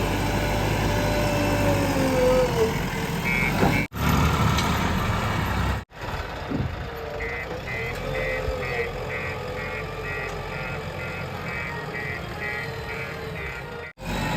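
Heavy diesel machinery running, with a wavering mid-pitched whine over the engine rumble. In the second half a reversing alarm beeps at about two beeps a second. The sound drops out briefly three times at cuts in the footage.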